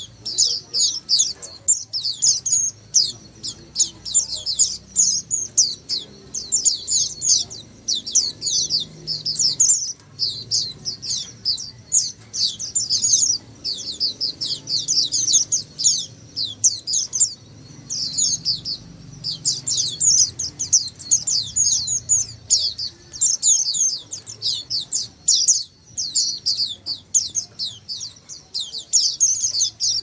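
A flock of white-eyes (pleci) twittering together: a dense, unbroken stream of high, quick chirps from many birds at once.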